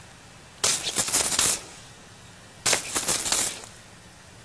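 Two bursts of rapid crackling rattle, the sound of battle gunfire, each about a second long and about two seconds apart.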